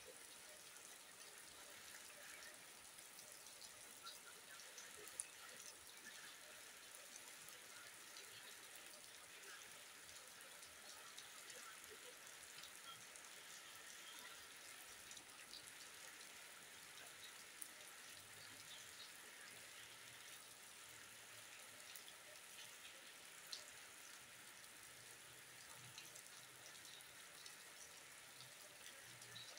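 Faint, steady rain falling on wet ground and puddles, with scattered ticks of single drops.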